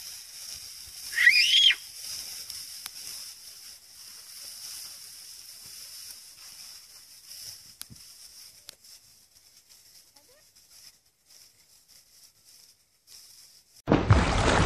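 High, steady insect buzz from the field, fading out after about ten seconds, with one loud call that rises and falls in pitch about a second in. Near the end a loud rushing water splash effect cuts in suddenly.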